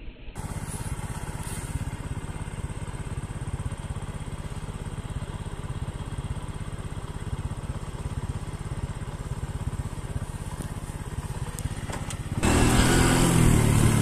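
Motorcycle engine running steadily, heard from on or beside the bike. It gets louder about twelve seconds in.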